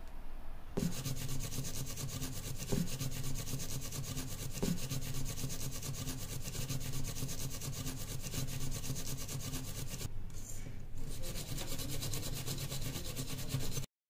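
Steel wool scrubber rubbing back and forth over a copper-clad PCB blank in rapid strokes, scouring off the oxidation layer to bring the copper to a shine. The scrubbing starts about a second in and pauses briefly near ten seconds before resuming.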